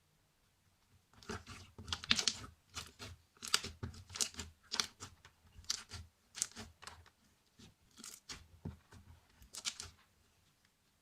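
Purple slime being squished and stretched by hand as two slimes are mixed together: irregular crackly squelches, one or two a second, starting about a second in and stopping near the end.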